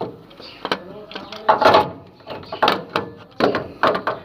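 Hand tools and metal parts clacking and knocking in a string of sharp, irregular strikes.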